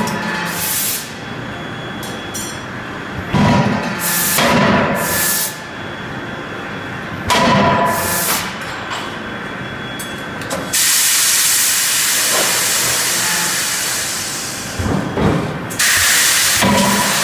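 CNC die-forging hammer striking: heavy blows a few seconds apart, each with a metallic ring. About two-thirds of the way through, a steady hiss of released air or steam runs for about five seconds.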